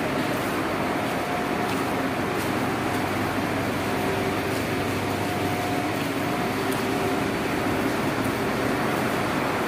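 Steady mechanical drone of tunnel ventilation and construction machinery inside a railway tunnel under construction, with a faint hum that fades in and out.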